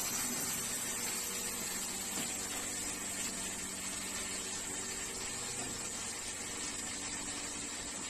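Breathing-air compressor charging an SCBA cylinder: a steady high hiss of air over a steady hum of the running machine.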